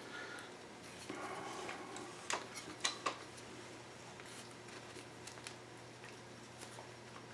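The plastic handguard halves of an AR-15 being worked free of the barrel: light clicks and rattles of hard plastic against metal, with three sharper clicks between about two and three seconds in.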